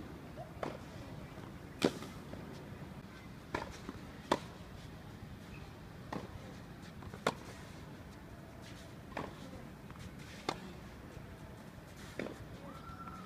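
Tennis rally: sharp pops of the ball being struck by the racquets, every one to two seconds, some louder than others, over a steady low outdoor hum.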